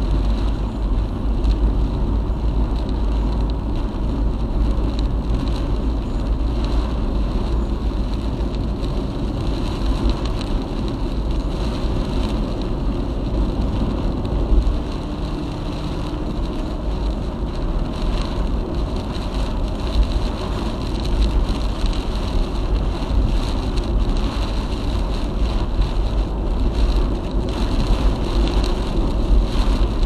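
A car driving at expressway speed, a steady rumble of tyres and engine mixed with the noise of strong typhoon wind.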